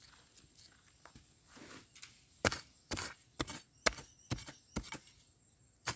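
A metal digging blade chopping into dry, hard earth beside wild yam tubers: faint scraping of soil, then a run of six sharp chops about half a second apart from about two seconds in.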